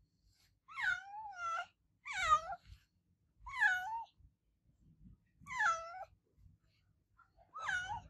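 Domestic cat meowing repeatedly: five drawn-out meows about one and a half to two seconds apart, each dipping and then rising in pitch.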